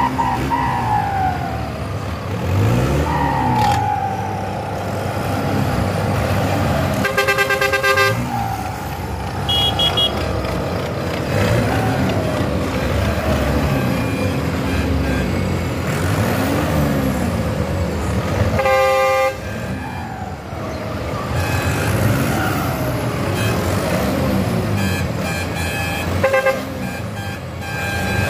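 Diesel farm tractor engines revving up and down again and again, with blaring horn blasts: one about 7 seconds in, another around 19 seconds, and a couple of short toots near the end.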